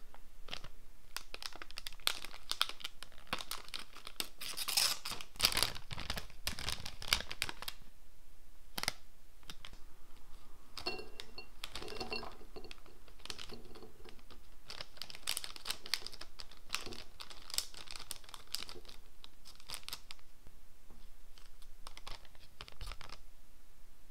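Crinkly plastic snack bag being handled, torn open and shaken so marshmallows tip out onto a plate; irregular crackling and rustling of the film, busiest in two spells.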